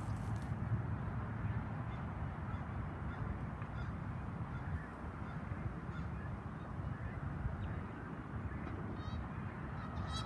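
Waterbirds on a lake calling: faint short calls scattered throughout, and a quick rattling series near the end, over a steady low rumble.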